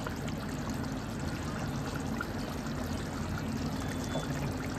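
Thin paneer gravy simmering in a steel pan, bubbling steadily, over a low steady hum.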